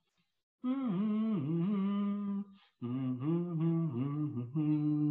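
A man humming a tune without words in slow, held notes. It starts about half a second in and runs in two phrases, with a brief break a little past two seconds.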